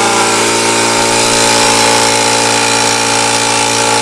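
High-pressure air compressor running steadily, a motor hum with a hiss on top, filling a PCP airgun's air reservoir to about 1,000 PSI to test it for leaks.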